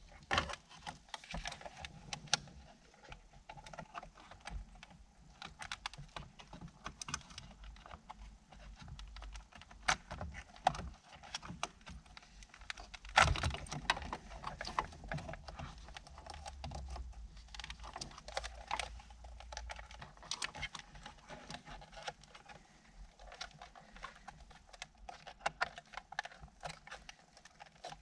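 Irregular plastic clicks, taps and rattles of a Ford Mustang's factory radio module and dash wiring connectors being handled and unplugged, with a louder knock about 13 seconds in.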